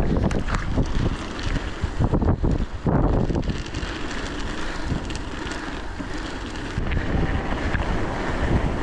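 Strong blizzard wind blowing hard against the microphone, gusting heavily for the first three seconds or so, then blowing more steadily.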